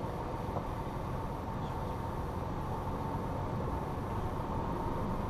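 Toyota 4Runner's 4.0-litre V6 and tyres driving over a dirt off-road track, with a steady low rumble.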